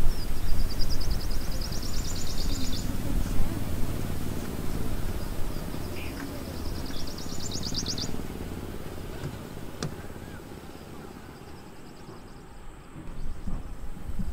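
A bird trilling twice, each a run of rapid, evenly repeated high notes that builds for a couple of seconds and stops abruptly, over a low wind rumble that fades away. One sharp click about ten seconds in.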